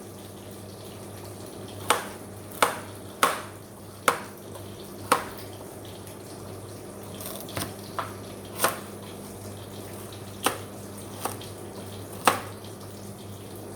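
Kitchen clatter: about a dozen separate sharp knocks and clinks of dishes and utensils, spaced irregularly, over a steady low hum.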